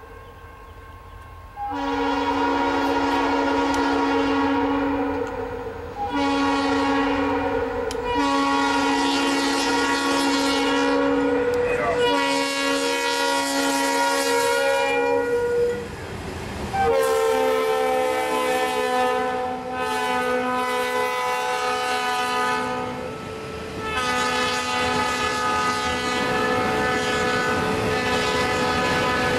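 Diesel freight locomotive air horn sounding a series of long blasts, several chime tones at once, as the train approaches and passes a grade crossing. Under the horn the train's cars clatter over the rails.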